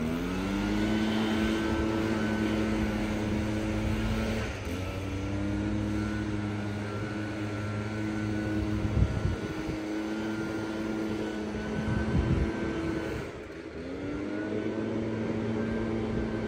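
Small petrol engine of grass-cutting equipment running at high speed. Its pitch rises as it revs up at the start, then sags and picks back up twice: about four seconds in and near the end.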